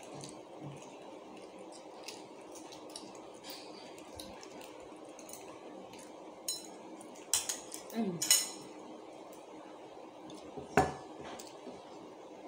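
Small spoon clinking and scraping on balut eggs and a plate as they are scooped and eaten. Scattered light taps come with a quick cluster of clicks about seven to eight seconds in and one sharp click near eleven seconds.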